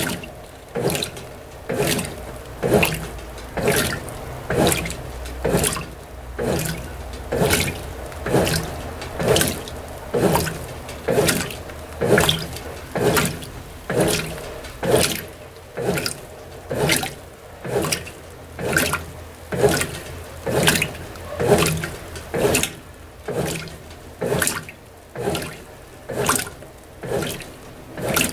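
Brastemp BWT12 top-loading washing machine agitating a load of delicates: water and clothes slosh in a regular swish about once a second as the wash action turns back and forth.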